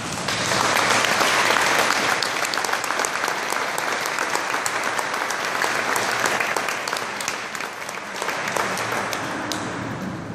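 Audience applauding, many hands clapping together. It swells within the first second and eases off toward the end.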